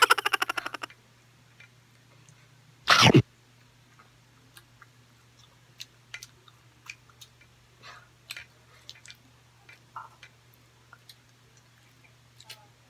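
Quiet eating: faint scattered mouth and chewing clicks over a steady low hum. A brief stuttering laugh at the very start, and one short, loud, cough-like burst about three seconds in.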